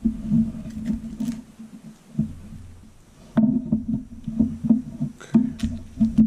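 Small sharp clicks and taps of smartphone parts being handled and pressed into the phone's frame, over a low rumbling drone that stops for about a second in the middle.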